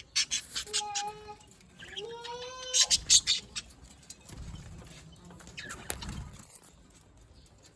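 Pet birds feeding: sharp pecking or beak clicks come in two quick clusters, mixed with two short pitched calls, the second rising.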